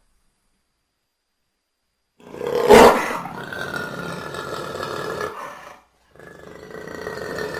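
Jaguar (Panthera onca) giving two long, loud calls. The first starts about two seconds in and is loudest at its onset; after a brief pause the second follows near the end.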